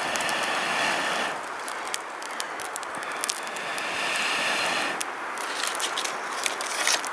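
Someone blowing twice on glowing campfire embers under a strip of birch bark, each blow a long breathy hiss. After the second blow the bark catches and crackles with quick sharp pops.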